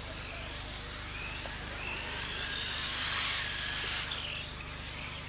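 Radio-controlled racing cars' motors whining as they run round the track, the pitch rising and falling with their speed and loudest about three to four seconds in, then dropping away.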